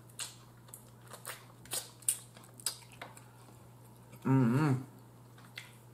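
Mouth sounds of someone eating chicken: a string of small wet clicks and smacks as she chews and licks her fingers, then a short hummed "mmm" about four seconds in.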